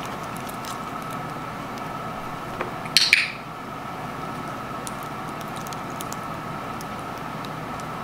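A handheld training clicker clicks once, a sharp double click of press and release about three seconds in, marking the moment for the parrot's reward. Light faint taps and a steady room hum sit under it.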